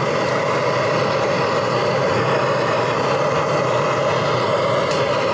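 Handheld gas torch burning steadily, a loud even rushing noise, used to burn caked carbon off the top of an engine piston.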